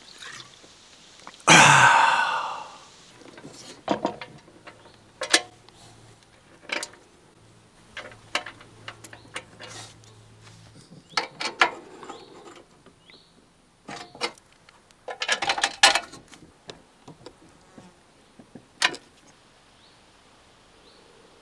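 Metal-on-metal work on a lawnmower: a loud ringing clang about a second and a half in, then scattered knocks and two short runs of quick clicks, as a Briggs & Stratton engine is bolted to a steel mower deck with new metric bolts. A faint low buzz lies under the middle of it.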